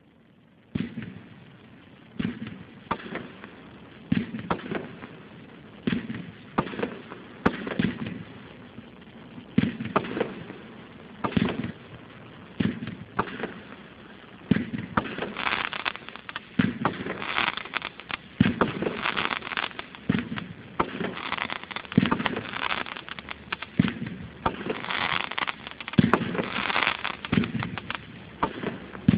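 A 42-shot, 500-gram consumer fireworks cake firing shot after shot: sharp launch thumps about once a second. Through the middle and near the end there are stretches of dense crackle from the bursting stars.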